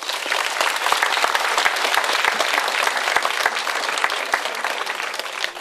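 A crowd applauding, many hands clapping at once; the clapping thins out and dies away near the end.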